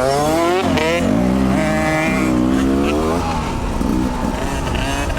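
Two-stroke dirt bike engine revving. The pitch climbs in the first second, holds for a while and falls about three seconds in.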